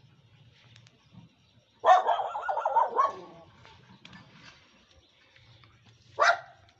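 Dog barking: a burst of rapid barks lasting about a second, around two seconds in, then one short bark near the end.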